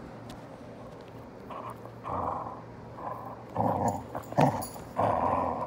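Young basset hound growling in play: a series of short rough growls, getting louder from about two seconds in.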